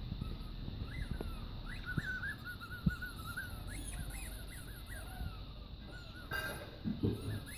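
Staffordshire bull terrier puppy whining in a long, wavering, warbling tone while it plays on its back, with a short return of the whine near the end.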